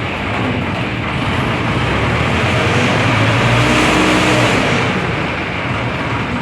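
Heavy engine running steadily, revving up a little about halfway through and settling back down.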